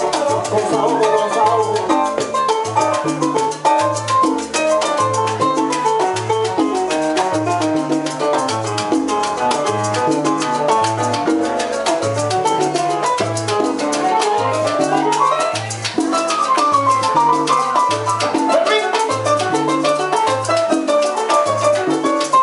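Live salsa band playing: an electric upright bass plucks a repeating syncopated tumbao line under a keyboard piano montuno, with percussion ticking along on top.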